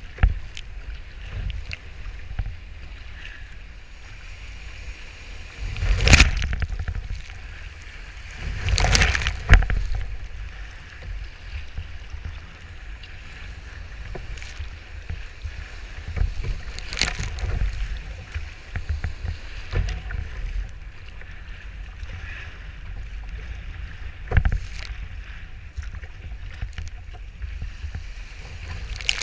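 Sea kayak in breaking surf: wind buffeting the microphone with a steady low rumble, and water rushing and splashing around the hull. Four loud surges of breaking waves and spray hit the kayak, the biggest about six and nine seconds in, another a little after halfway and one near the end.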